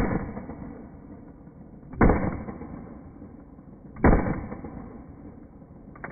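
Three pistol shots from a scratch-built semi-automatic .32 ACP pistol modelled on a Mauser C96, fired slowly about two seconds apart, each followed by a long fading echo. A much fainter sharp sound comes near the end.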